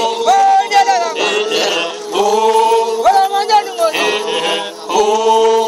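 A group of Samburu singers chanting together in chorus, with held sung phrases that come round again every second or two.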